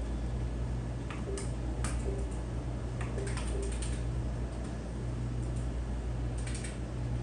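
Keys and controls on an ultrasound machine's console clicking in scattered single presses and quick runs, over a steady low hum.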